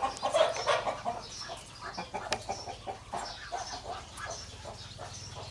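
Newly hatched chicks peeping in rapid, overlapping short calls around a broody hen, mixed with the hen's low clucks.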